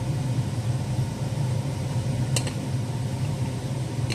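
Steady low mechanical hum, with two brief light clicks: one about two and a half seconds in, one near the end.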